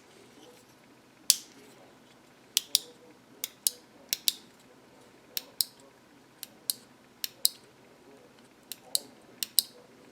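Sharp plastic clicks, about twenty of them and many in quick pairs, from a power window switch being handled and snapped back together after its contacts were cleaned.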